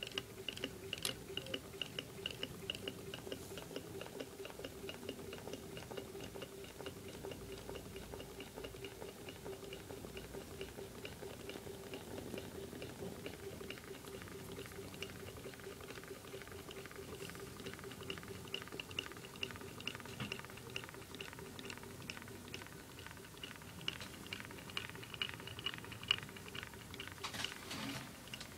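Astromedia cardboard low-temperature-differential Stirling engine running at about 120 rpm, knocking rhythmically about twice a second, with faint bubbling and sputtering of steam from the heater beneath it. The builder takes the bubbling as water boiling where the engine sits sealed against the heater. A brief louder clatter comes near the end.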